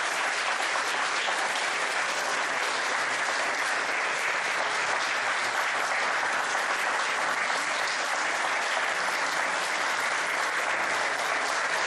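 Crowd applauding: dense, even clapping at a steady level.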